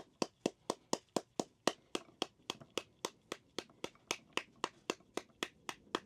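A kitchen utensil striking repeatedly in an even rhythm, about four sharp taps a second, as food is worked by hand during meal preparation.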